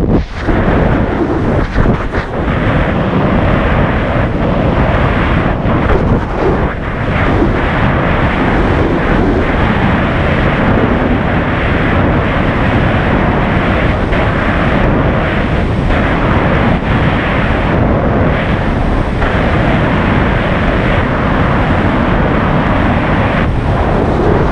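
Loud, steady rush of freefall air blasting across the camera microphone during a tandem skydive.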